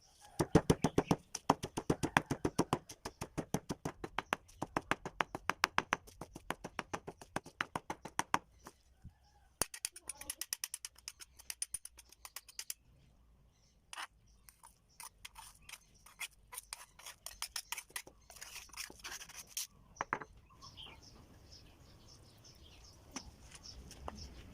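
Rapid, rhythmic strikes in food preparation, about five a second, in runs that stop and start, then sparser single strikes near the end.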